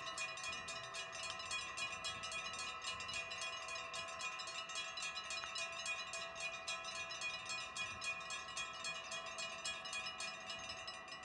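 Mechanical level-crossing bells of a Dutch automatic half-barrier crossing, ringing with a fast, even run of strikes in several steady tones. They cut off suddenly near the end, once the barriers are down.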